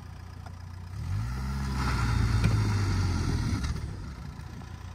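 An SUV's engine revs up about a second in, holds for a couple of seconds and then falls back as the car strains to pull a hitched caravan out of deep snow.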